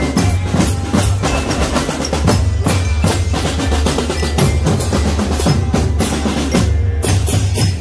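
Marching drum corps playing a fast, driving percussion cadence of snare and bass drum hits.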